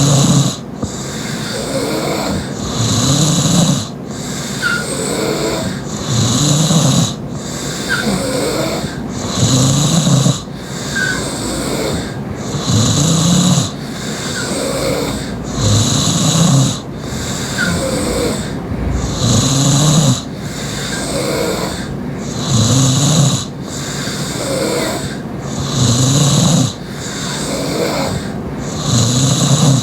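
Loud open-mouthed snoring from a sleeping woman. The snores are regular, one on each breath about every three seconds.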